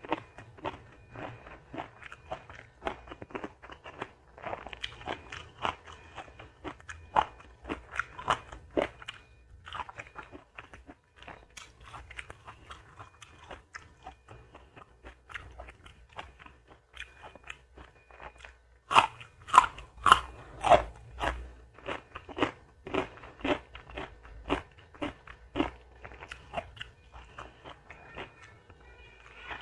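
A person chewing and crunching food close to the microphone, with many short crisp crunches throughout and a louder run of crunches about 19 to 21 seconds in.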